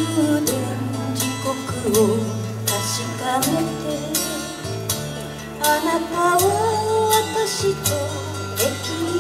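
A woman sings a slow ballad into a microphone over instrumental accompaniment with steady held bass notes. Her voice comes in just after the start and glides between held notes.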